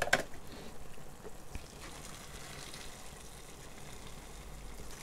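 Hot water poured from an electric kettle into a paper instant-noodle cup: a faint, steady trickle, after a short knock at the very start.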